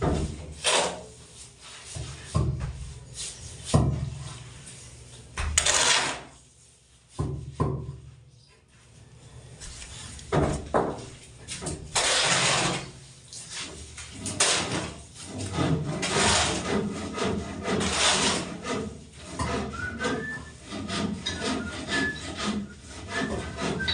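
Wood being worked by hand: irregular rasping strokes and knocks, with a quieter pause about a third of the way in.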